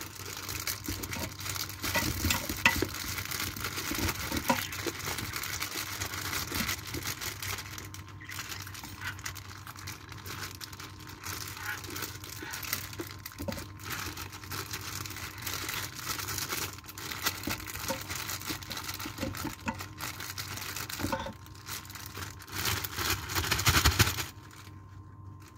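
Plastic produce bag of baby-cut carrots crinkling and rustling as hands squeeze and pull at it to get it open, with short lulls and a louder stretch of crinkling near the end.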